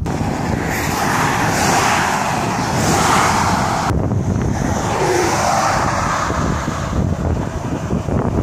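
Wind rushing over the microphone with the road noise of a car driving slowly along a highway, swelling and easing. The sound changes abruptly about four seconds in.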